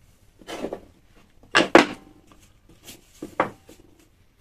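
Wooden pieces (halves of an ash log and a flat wooden insert) being handled and set down on a saw table: a handful of separate knocks and clunks, the loudest two close together about a second and a half in.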